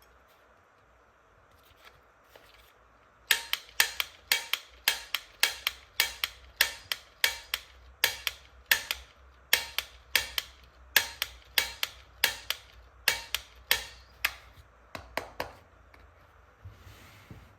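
A run of sharp plastic clicks, about two or three a second, starting a few seconds in and stopping a couple of seconds before the end, as pieces of a plastic toy gun set are handled.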